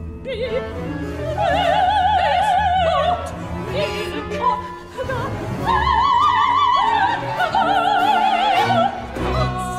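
Two female opera singers trading short sung phrases in English with wide vibrato, over a small orchestra holding sustained notes.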